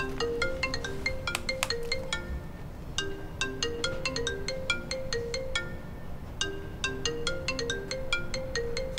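Smartphone ringing with an incoming call: a ringtone melody of quick plucked, bell-like notes, its phrase repeating about every three seconds.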